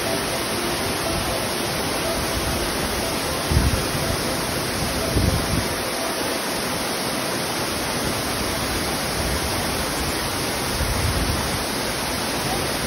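Large waterfall pouring into a plunge pool: a steady, full rush of falling water. Two brief low bumps come through, about three and a half and five seconds in.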